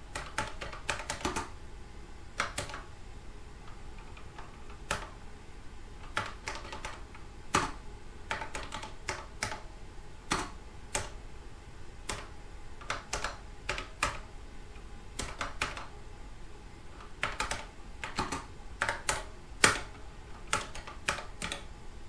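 Typing on a Kaypro II computer keyboard: keystrokes in short irregular runs of clicks with pauses between.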